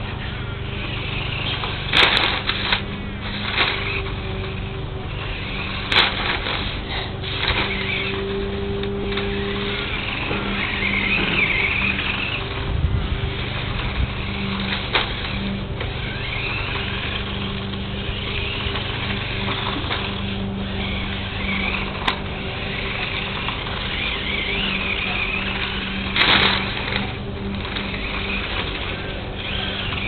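Small radio-controlled toy truck's electric motor whining, rising and falling as it drives about on brick paving, over a steady low hum, with a few sharp knocks along the way.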